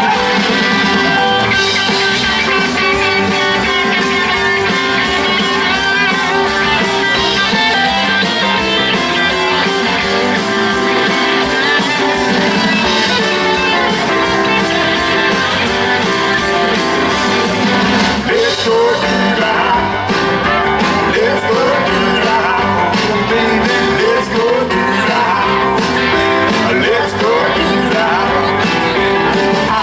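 Live band playing rock-and-roll music, with electric guitar prominent.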